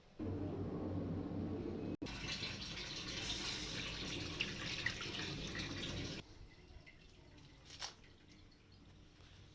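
Water running from a tap, stopping abruptly about six seconds in, with a short drip-like sound a couple of seconds later.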